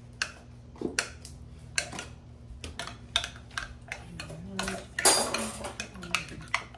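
A spoon clinking and scraping against a glass mixing bowl while stirring a thick, creamy casserole mixture, mixed with a knife tapping on a wooden cutting board as cooked chicken is cut up. The taps come irregularly, with a louder, longer clatter about five seconds in.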